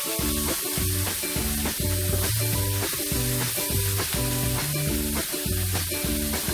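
Pork and mushroom stir-fry sizzling in hot oil in a frying pan as it is stirred, under background music with a moving bass line.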